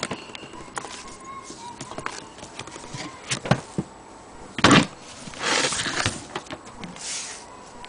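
Handling noise from an old leather camera case being turned over and moved by hand: scattered knocks and scuffs, the loudest a sharp knock a little under five seconds in, followed by a couple of brief rustling rushes.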